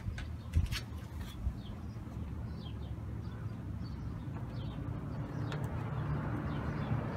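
Outdoor background: a steady low traffic hum that grows louder near the end, with faint bird chirps through the middle. A few light clicks come in the first second or so.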